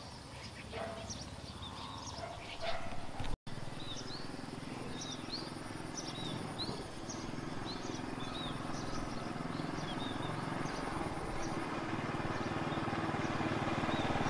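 Outdoor garden ambience with small birds chirping. Scattered high chirps give way, after a short break about three and a half seconds in, to a run of short arched notes repeated about twice a second, over a low rumble that grows louder toward the end.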